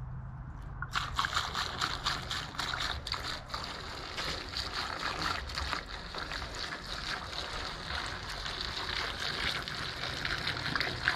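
Gasoline pouring from a plastic gas can through a funnel into a portable generator's fuel tank. The pour starts about a second in and runs steadily.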